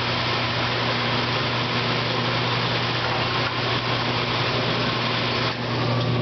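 Semi-automatic water-jug washing machine running: a steady electric hum with a constant hiss over it, briefly dipping about five and a half seconds in.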